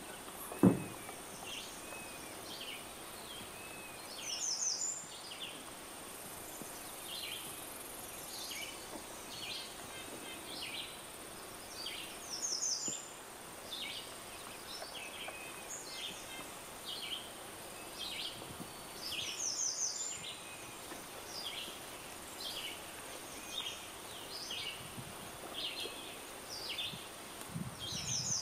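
Outdoor wilderness ambience with small birds chirping throughout and a quick high trill repeated about every eight seconds. A single low thump about a second in.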